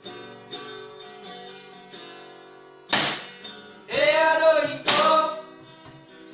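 Music: plucked acoustic guitar notes, a loud strum about three seconds in, then a voice singing from about four seconds in.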